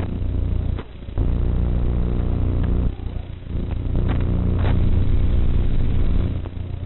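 FPV racing quadcopter's brushless motors and propellers buzzing steadily, dropping away briefly about a second in and again about three seconds in as the throttle eases, with a few short clicks.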